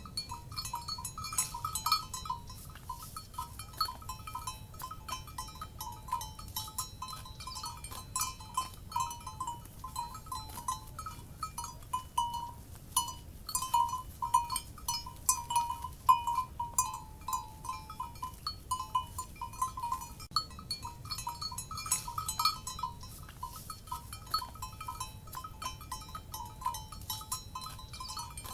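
Livestock bells clanking irregularly: several bells ringing at a few fixed pitches as the animals move, over a low steady rumble.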